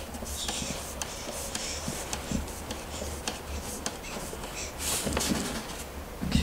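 A Phillips screwdriver turned by hand drives a wood screw into a cajon's laminate-faced front panel. It gives faint scraping and scattered small clicks as the screw bites and its head is sunk below the striking surface.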